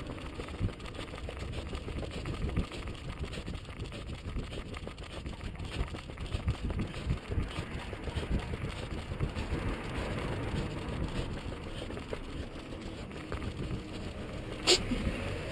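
Wind rumble and jostling noise on a body-worn action camera's microphone during a run, with uneven knocks from footfalls and camera movement. A brief sharp sound comes near the end.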